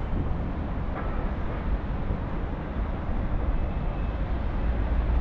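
Steady low rumble with an even hiss above it: outdoor background noise, with no distinct event standing out.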